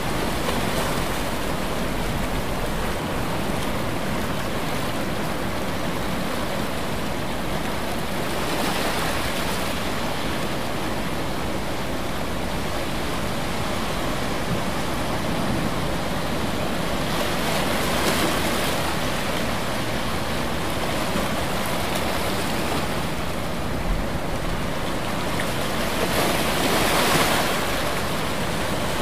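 Ocean surf: a continuous wash of water, with a wave swelling and breaking about every nine seconds.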